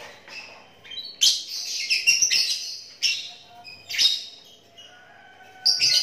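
Caged lovebirds chirping with sharp, shrill calls. A quick run of calls comes about a second in, followed by single calls roughly once a second.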